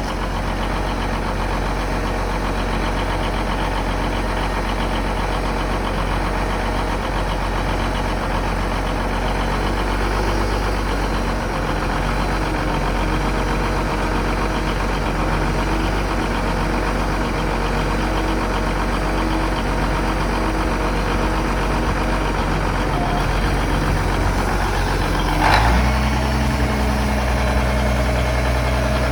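Steiger Panther 1000 tractor's diesel engine running steadily. About 25 seconds in there is a short clunk, and the engine note changes and grows heavier, as the tractor is tried in gear with a newly fitted clutch micro switch.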